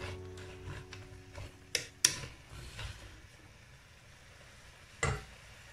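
Wooden spoon stirring sliced zucchini in an aluminium pot, with scattered sharp knocks of the spoon against the pot: two loud ones about two seconds in and another near the end. Background music fades out at the start.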